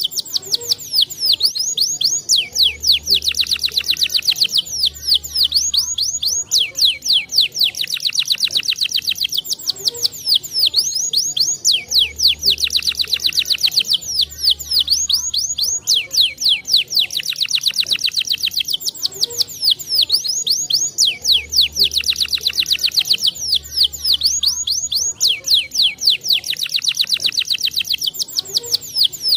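Domestic canary singing continuously in rapid, high trills and rolls, the same song sequence coming round again about every nine to ten seconds, as a looped recording used to stimulate other canaries to sing.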